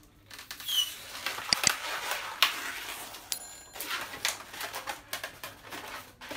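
Latex twisting balloon squeaking and rubbing as hands squeeze and twist it into the snake's head and tongue: short high squeaks, rustling and scattered clicks, with a longer squeak about halfway through.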